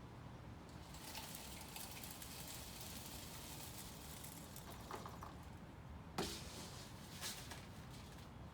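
Birdseed being poured from a scoop into a bird feeder: a soft, steady rustling of pouring seed, with a few sharp ticks as seeds strike the feeder near the middle and end.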